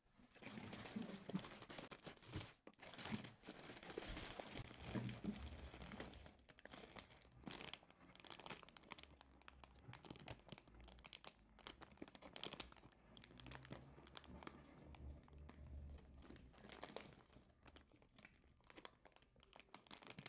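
Thin plastic packaging of a mesh bath sponge crinkling and rustling as it is handled, in dense irregular crackles that are busiest over the first six seconds or so.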